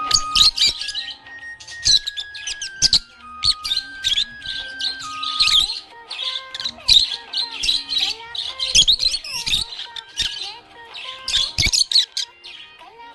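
Budgerigars chirping and warbling in rapid, dense runs, over background music of held notes that step in pitch.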